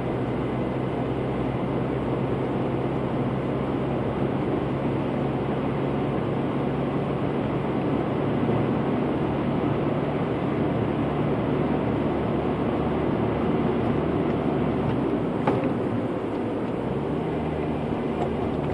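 Steady engine and tyre noise of a vehicle driving through a road tunnel, heard from inside the cabin, with a low engine hum under it. A single click sounds about three-quarters of the way in, and the low hum shifts slightly near the end.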